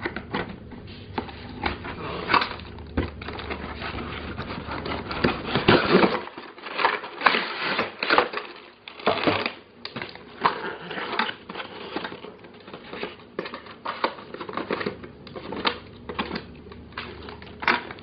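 Cardboard and plastic toy packaging being opened and handled by hand: irregular crinkling, scraping and many small clicks.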